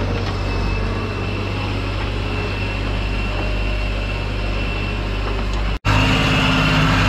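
Tractor engine running steadily at constant speed. The sound drops out for an instant almost six seconds in, then carries on a little louder.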